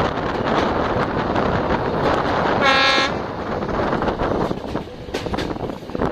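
Passenger train running, with wind rushing past the microphone held out of the carriage window, and a short horn blast from the locomotive about three seconds in.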